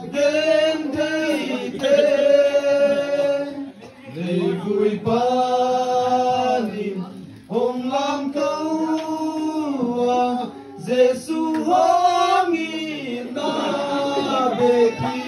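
A group of voices, men and women, chanting a song together in long held phrases, with short breaks between phrases.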